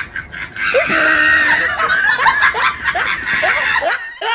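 Several people laughing hard together, the laughter swelling loud about half a second in.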